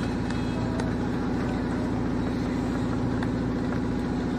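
Child's battery-powered toy electric motorbike running, a steady hum with a rapid, even pulse. It is working again on two fresh 1.5-volt AA cells; its two dead cells were the fault.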